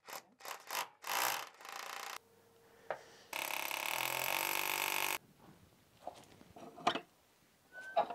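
Cordless drill running for about two seconds, a steady whir whose pitch climbs as it spins up. Before it come a couple of seconds of rustling and handling knocks.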